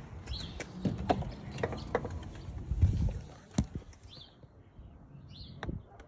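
Footsteps and a string of clicks and knocks as someone walks up to a car, opens the door and climbs in, with one sharp knock about three and a half seconds in; two short high chirps follow in the quieter second half.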